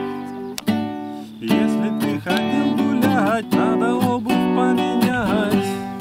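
Classical nylon-string acoustic guitar strummed in chords, accompanying a song. The strumming eases off briefly about half a second in and picks up again a second later, and a voice sings a wavering line over it through the middle.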